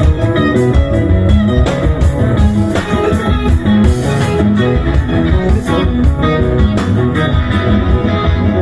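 Live band music led by guitar, with bass and drums playing steadily.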